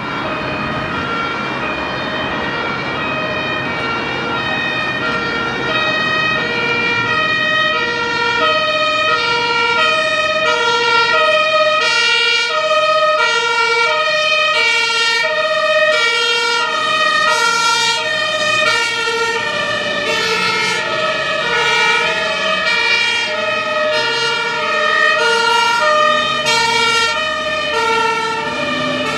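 German police water cannon trucks (Rosenbauer WaWe 10000) passing with their two-tone sirens sounding, a steady alternation of a high and a low note, over the rumble of the truck engines and tyres.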